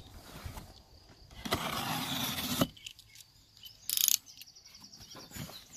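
A knife slitting packing tape along a cardboard shipping box: a scraping rasp for about a second ending in a sharp click, then a brief high tearing sound a little later as the tape and flap come free. A faint bird chirp near the end.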